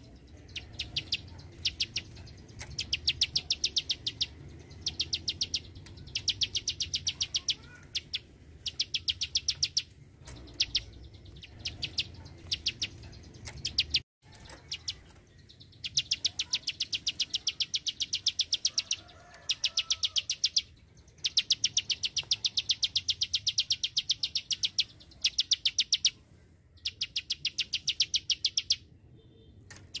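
Caged plain prinia singing its 'klik-klik' song: rapid runs of dry, evenly spaced clicking notes, each run lasting a second or two and repeated again and again with short pauses. A faint steady low hum lies underneath.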